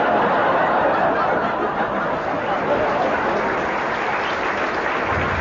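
Live audience laughing and applauding in reaction to a joke's punchline, a dense steady crowd noise that eases off a little toward the end.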